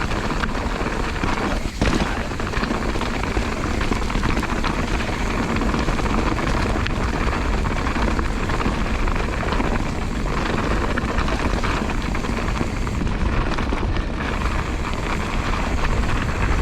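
A steady rushing rumble of a mountain bike running fast down a wet, muddy trail: wind over the helmet-camera microphone, with tyre noise and small rattles and knocks.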